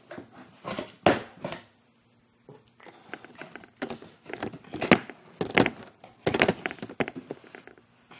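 Cardboard box and packaging being handled: a string of irregular knocks, crackles and rustles, with a brief silence about two seconds in.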